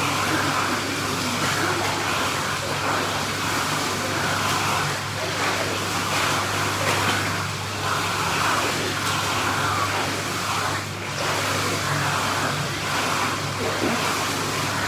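Steady rush of churning pool water under a constant low hum, with some splashing from a swimmer.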